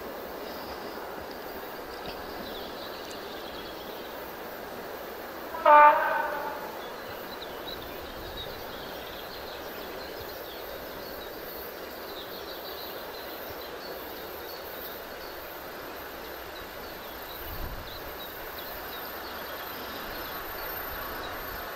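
A train horn gives one short blast about six seconds in, over the steady noise of a train running on the rails.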